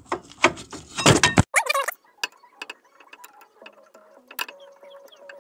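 Brake caliper being worked off the disc: a run of loud metallic knocks and scrapes in the first second and a half, a brief squeal, then scattered light clicks and taps.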